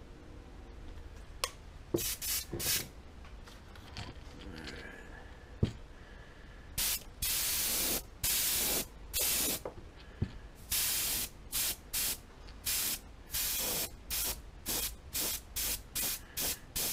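Airbrush spraying paint in on-off bursts of hiss as the trigger is pressed and released, laying light coats. A few brief bursts come about two seconds in, then longer bursts from about seven seconds, quickening into short rapid puffs near the end.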